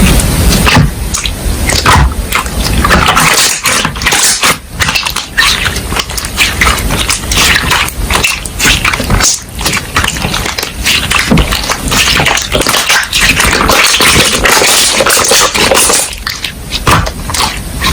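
Slime being squished and pressed by hand, making a dense run of sticky clicks, crackles and squelches.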